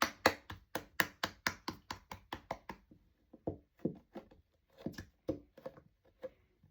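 Glue being mixed into slime in a bowl: quick tapping knocks, about four a second, thinning out and growing fainter after about three seconds.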